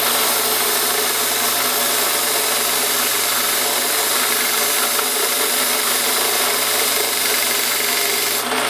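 Electric power tool running steadily at one speed, with an even abrasive hiss as the metal bar end is spun and sanded smooth to refinish it.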